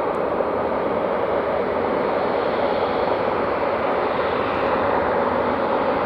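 Boeing 747-8F freighter's four GEnx jet engines at takeoff power: a steady rushing jet noise that slowly grows louder as the aircraft departs.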